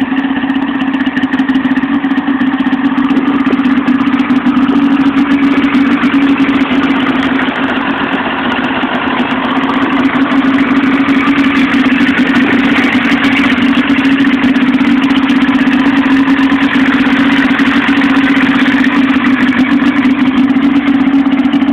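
2002 Polaris XC SP 600 snowmobile's twin-cylinder two-stroke engine idling steadily.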